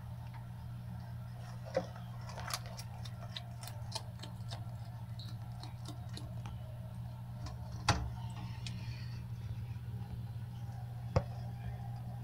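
Scattered small clicks and taps over a steady low hum: a quick run of them a couple of seconds in, then a few sharper single clicks later on.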